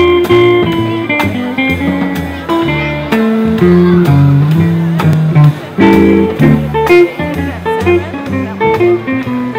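Small live band playing a tune on guitar, upright double bass and drum kit, the bass stepping through notes under the guitar with steady drum hits.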